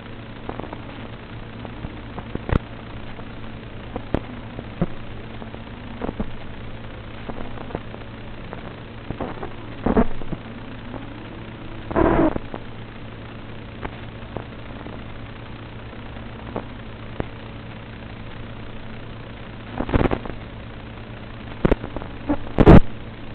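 Steady low hum and hiss from an analog FPV video link's audio channel as captured by the goggle DVR, broken by sharp clicks and crackles of static. The loudest crackle comes about halfway in, as the video signal breaks up, and there are more bursts near the end.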